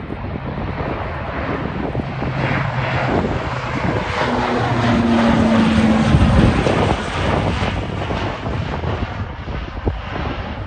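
Saab 2000 twin-turboprop (two Rolls-Royce AE 2100 engines) climbing out at takeoff power, its propellers and engines droning with a few steady low tones. It grows louder as it passes overhead about six seconds in, then fades as it flies away.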